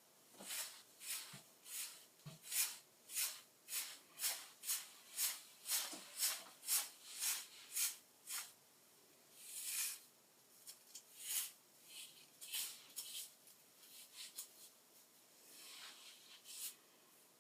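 Quick, rhythmic strokes of a comb or brush through hair, each a short scratchy hiss, about two a second; about halfway through comes one longer stroke, and after it the strokes come sparser and irregular.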